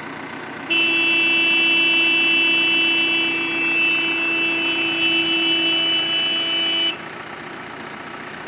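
Truck horn sounding in one long, steady blast of about six seconds that starts and stops abruptly, over a vehicle engine idling.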